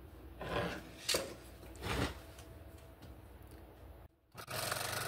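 A few soft rustles as a paper-covered wood workpiece is handled, then, after a brief cut, a scroll saw running steadily near the end.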